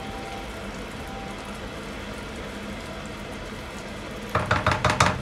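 Gravy boiling in a stainless steel frying pan, a steady bubbling simmer. Near the end comes a quick run of louder scrapes and knocks as a wooden spoon stirs against the pan.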